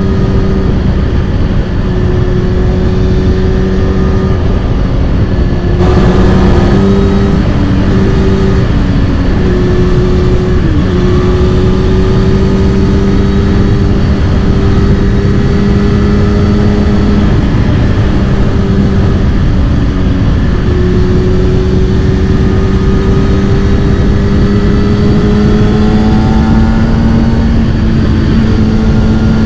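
Kawasaki Ninja ZX-6R's inline-four engine through a Scorpion titanium exhaust, running at steady revs on the move. The note dips briefly about ten seconds in and rises slowly in pitch over the last several seconds.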